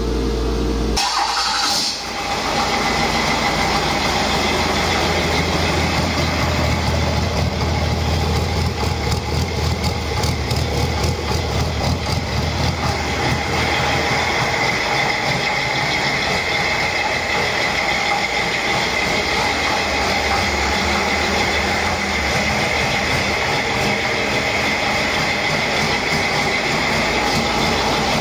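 Cummins ISB 5.9-litre inline-six turbo-diesel starting up on a test stand about a second or two in, then running steadily. A faint higher tone comes up about halfway through.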